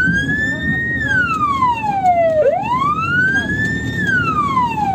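SGU Elect ambulance siren sounding a slow wail through its loudspeaker horn. The pitch rises over about a second, holds briefly at the top, then falls more slowly, twice, in cycles of about two and a half seconds.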